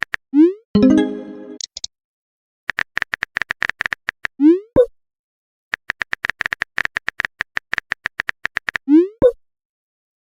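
Simulated smartphone keyboard typing: runs of quick, even key clicks, each ending in a short rising swoosh and a pop like a message being sent, three times over. A louder tone sounds just after the first swoosh.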